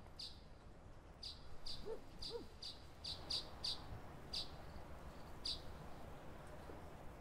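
Faint birdsong: a run of short, sharp high chirps repeated irregularly, with two brief lower notes about two seconds in, over a faint low rumble.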